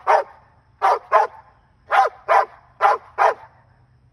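A large dog barking at a squirrel up in a tree, in loud paired barks, about one pair a second.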